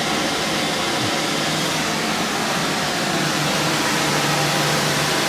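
Steady background hiss with a faint low hum, from air-handling equipment running.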